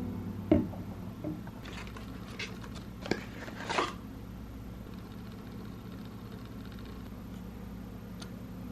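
A single knock, then a few light clicks and rustles over the next few seconds, like small objects being handled. A steady low hum follows.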